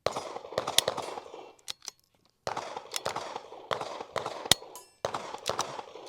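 Gunfire in three bursts of rapid, overlapping shots with sharp cracks, separated by short pauses.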